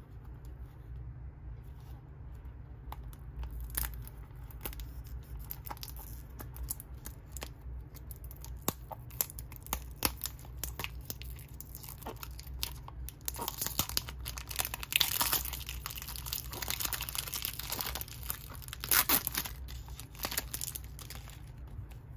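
Fingernail picking and tearing at the seal on the end flap of a small cardboard Tomica toy-car box, with scattered ticks and scratches of handling at first, then longer stretches of tearing and crinkling about two-thirds of the way in and again near the end.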